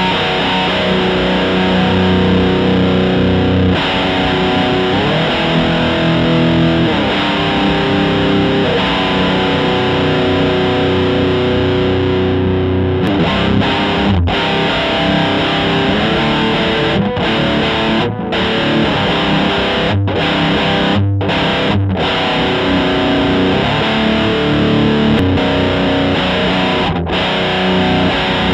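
Electric guitar through a reproduction of Electro-Harmonix's 1970s op-amp Muff Fuzz, turned fully up and boosting a vintage Big Muff fuzz, played through a combo amp. Heavily distorted sustained chords and notes that change every few seconds, with brief gaps between some changes.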